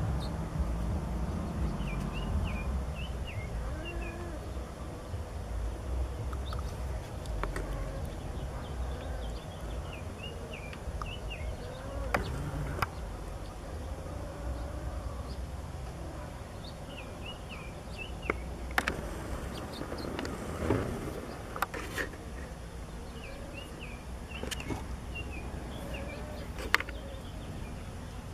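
Outdoor ambience with a steady low rumble and small birds chirping in short bursts every several seconds. A few sharp clicks and knocks stand out above it.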